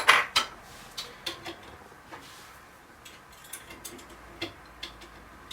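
ERA Fortress lever mortice sashlock being picked: one loud metallic click at the start, then faint, irregular clicks and ticks as the pick works the levers inside the lock.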